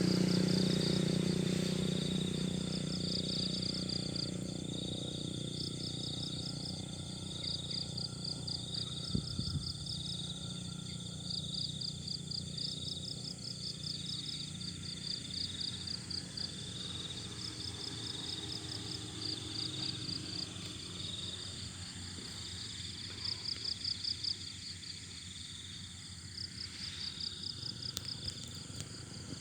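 Insects chirping in steady, rapid pulsing trills, two high-pitched calls overlapping throughout. A low rumble underneath is loudest at the start and fades over the first few seconds.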